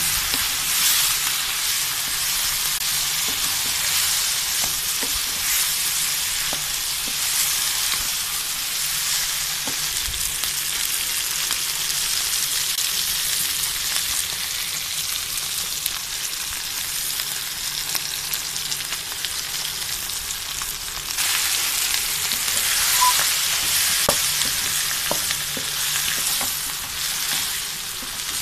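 Beef pieces sizzling in hot oil in a karahi while being stirred with a wooden spatula, with a few light taps of the spatula on the pan. The sizzle grows louder about three-quarters of the way through.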